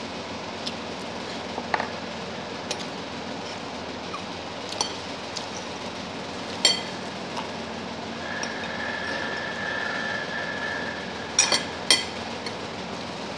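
Metal fork and spoon clinking and scraping against a ceramic plate while eating: a scatter of sharp clinks, the loudest about halfway through and a quick pair near the end. Under them runs a steady background noise, with a faint high steady tone for a few seconds in the second half.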